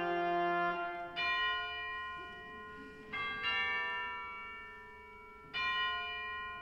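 Pipe organ playing bell-like chords: three chords that each start suddenly and die away in the hall's echo, with the tail of an earlier chord fading at the start.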